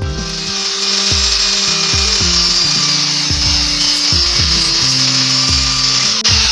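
Electric power tool working wood, a steady high-pitched hiss, over background music.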